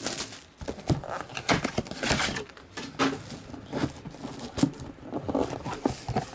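Plastic shrink-wrap crinkling and rustling, with scattered taps and knocks as a cardboard trading-card box is handled and its lid lifted off.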